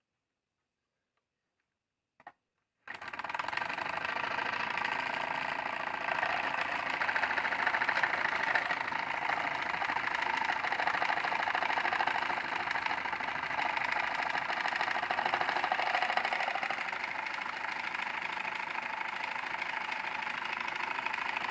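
Home-made tin-can gamma-type Stirling engine running with a steady, rapid mechanical clatter, starting abruptly about three seconds in after near silence.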